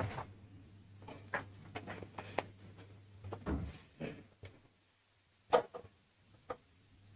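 Irregular small knocks, clicks and rustles of papers and objects being handled on a table close to a microphone, with one sharper knock about five and a half seconds in. A steady low hum runs underneath and drops out for a few seconds in the middle.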